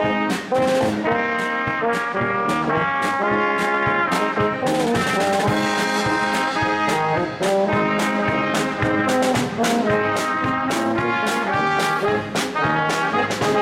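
Live Czech-style polka band playing: trumpet and tuba with other brass carrying the tune over a drum kit and keyboard, with a steady drum beat.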